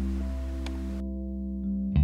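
Instrumental background music of long held notes, with a new note struck near the end.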